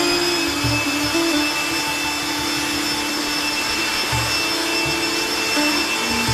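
A corded handheld electric air tool running steadily: a loud rush of air over a high, even motor whine, aimed at wet paint on a canvas.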